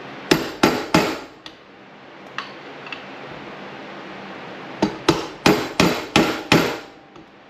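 Hammer striking a 3/4-inch socket to drive a bearing into an RB26 throttle body, with metallic clanks: three quick blows near the start, then a run of about six about three a second in the second half.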